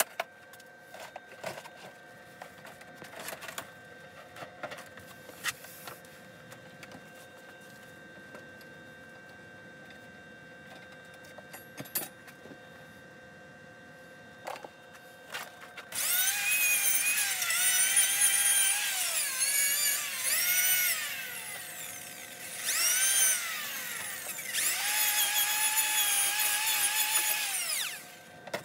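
A few faint clicks and knocks of handling, then from about halfway in a high-pitched power tool motor running loudly for roughly twelve seconds in stretches. Its pitch rises and falls as it speeds up and slows, with a short lull in the middle.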